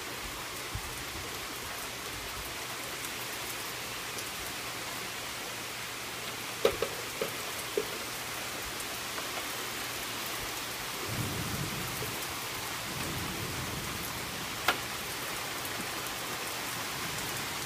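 Steady rain falling on a wooden deck, an even hiss, with a few sharp knocks about seven seconds in and once more near the end, and a low rumble about eleven seconds in.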